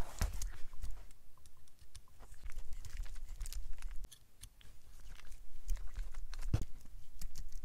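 Small clicks and light scraping of a hex driver turning a screw and fingers handling a micro RC crawler's chassis while its battery tray is removed, with one louder knock near the end.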